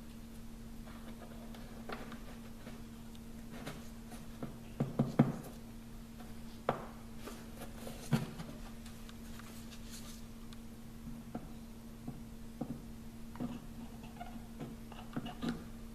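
Light knocks and taps of small wooden pieces being handled and fitted, as a wooden wedge is set into the joint between strip-built coaming riser pieces, with a cluster of sharper knocks about five seconds in and another near eight seconds. A steady low hum runs underneath.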